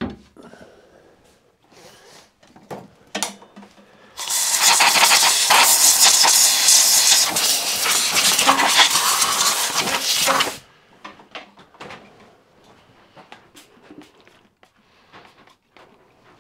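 Compressed-air blow gun hissing in one continuous blast of about six seconds, starting about four seconds in and cutting off sharply, as the lathe's bare spindle nose is blown clean before a chuck is fitted. Faint clinks and knocks of handling come before and after.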